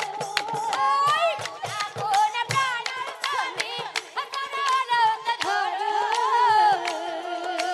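Live Assamese nagara naam devotional music: a voice singing a wavering, ornamented line over a held steady drone, with regular percussion strokes.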